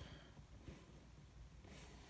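Near silence: room tone, with faint soft rustles of trading cards being handled.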